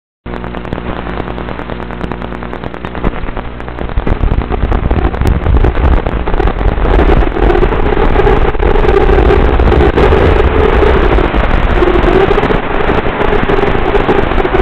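Tiny Whoop micro quadcopter's motors and propellers buzzing. It is lower at first, then gets louder about four seconds in as it lifts off and flies, with a wavering whine as the throttle changes.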